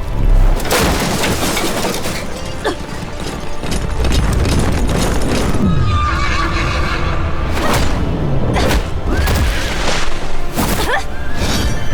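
Horses whinnying over a dramatic music score, with booming impacts, in an animated battle soundtrack.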